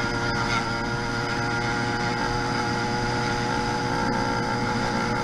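YD100 two-stroke motorized-bicycle engine with a window piston, running at a steady speed with an even, unchanging pitch.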